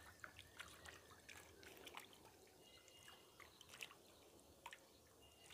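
Faint drips and small splashes of water as a hand stirs a shallow, net-lined fish holding tank, with scattered light ticks.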